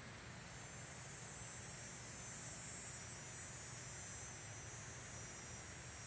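Steady high-pitched chorus of insects, growing a little stronger about a second in, over a faint low hum.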